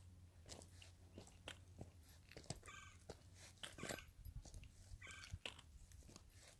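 Boot footsteps crunching on rocky gravel trail, about two steps a second at a steady walking pace.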